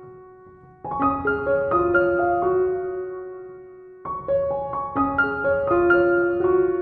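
Gentle background piano music: phrases of sustained notes, each dying away before the next phrase starts about a second in and again about four seconds in.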